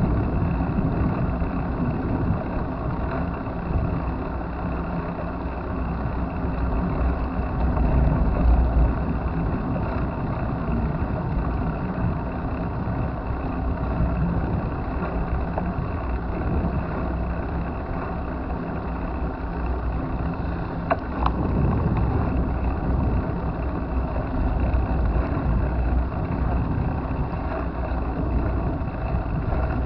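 Steady low rumble of wind and road noise from a moving bicycle, with one sharp click about two-thirds of the way through.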